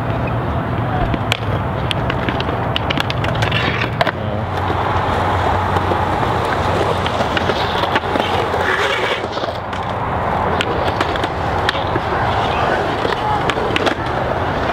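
Skateboard wheels rolling on a concrete bowl, with sharp clacks and knocks of boards. The rolling grows louder about four seconds in as a skater carves along the bowl wall close by.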